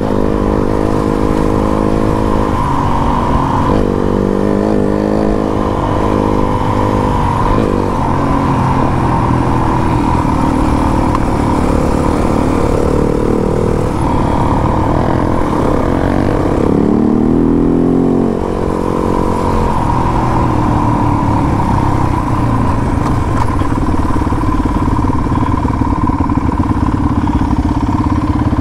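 Four-stroke trail motorcycle engine running under way, its revs rising and falling again and again, with a deeper drop and climb about two-thirds of the way through.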